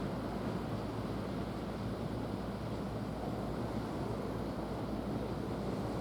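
Steady wind rushing over the microphone, mixed with the wash of sea surf against the breakwater.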